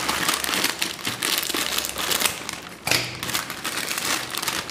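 Foil-lined plastic snack packet crinkling and crackling as it is cut open with scissors and pulled apart by hand, with one sharper, louder crackle about three seconds in.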